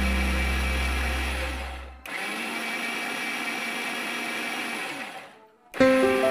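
Electric blender running steadily, churning yogurt and liquid for lassi in its jar, then stopping about five and a half seconds in. Background music fades out in the first two seconds, and piano music comes in right at the end.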